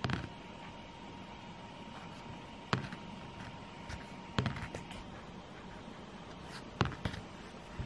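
A small wooden die knocking on a tabletop: a sharp knock every couple of seconds, with a quick little cluster of them midway and two close together near the end. Between the knocks a pen scratches faintly on paper.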